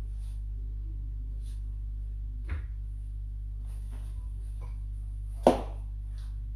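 Leather wedge slippers scuffing and tapping on a tiled floor as the wearer shifts her feet. There is a sharp tap about two and a half seconds in and a louder knock about five and a half seconds in, over a steady low hum.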